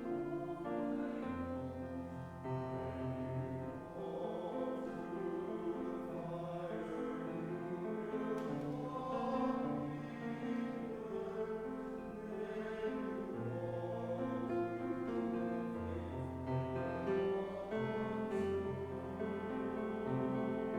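Slow church music: chords played over long held bass notes that change every few seconds.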